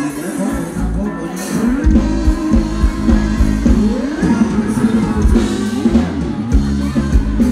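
Thai ramwong dance music from a live band: guitar, bass and drums playing a steady dance beat.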